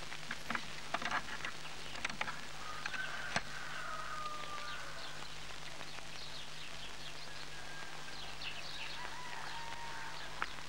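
Birds chirping and twittering, with a few short whistled notes, over the steady hum and hiss of an old film soundtrack. A few sharp clicks and taps come in the first few seconds.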